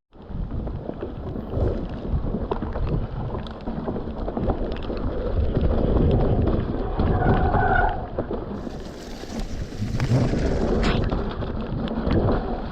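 Mountain bike rolling down a wet, rocky trail: a steady rumble of tyres and rattling bike with knocks over rocks, and a short squeal about seven seconds in. It is muffled by the rain-covered microphone.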